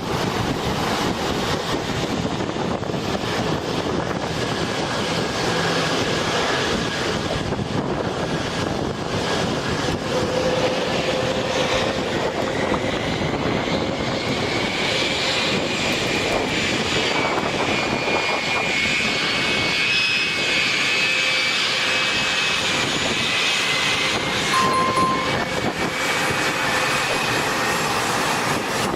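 Jet aircraft engines running steadily at high power, with a high whine over the noise that rises slightly partway through.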